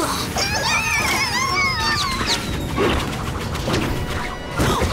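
Cartoon crash sound effects: three impacts about a second apart as stacked tyres are knocked flying off a tower, over background music with a wavering melody in the first two seconds.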